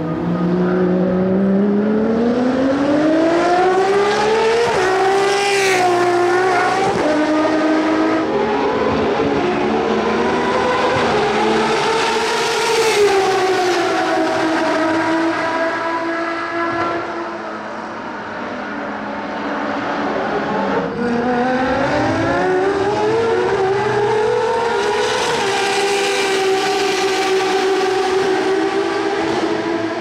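Ferrari 599XX race cars' naturally aspirated V12 engines accelerating hard and passing by, the pitch climbing as they rev and dropping as each car goes past. This happens three times: peaks about six seconds in, about thirteen seconds in, and near the end.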